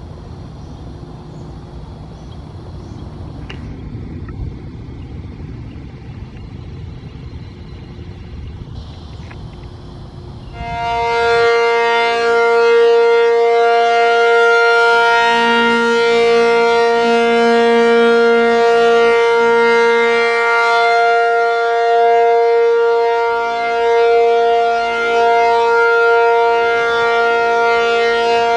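Low background rumble, then about a third of the way in an ACA P-50 outdoor warning siren starts sounding a steady alert tone, a chord of several pitches held without rising or falling, its loudness swelling and dipping slightly. This is the steady alert signal of a routine monthly siren test.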